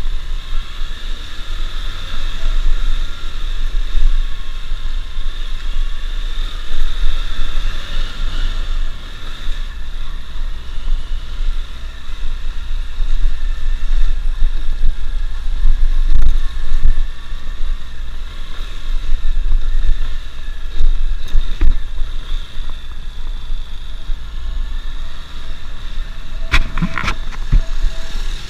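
Motorcycle ridden slowly, its engine running steadily under a constant low rumble of wind on the microphone. A brief, sharper sound comes near the end.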